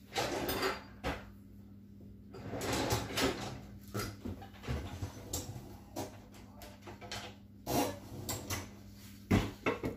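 Kitchen handling noises: two short stretches of rustling or scraping, then a run of small clicks and knocks.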